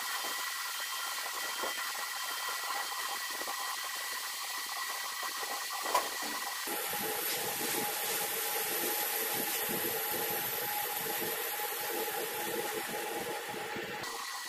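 CNC lathe running, its insert tool turning a spinning metal workpiece: a steady machining hiss with a few steady tones. About halfway through a high, thin whine and a stronger hum join in as the cut goes on, then stop shortly before the end.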